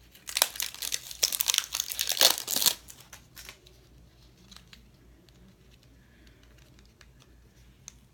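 Packaging of a lip liner being torn and crinkled open by hand for about two and a half seconds, followed by a few faint clicks of handling.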